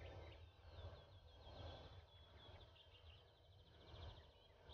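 Faint songbird singing: quick repeated high chirps run into trills, with a low rumble beneath.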